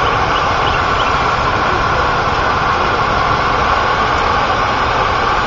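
Steady, unbroken rush of floodwater pouring over a dam with its gates wide open.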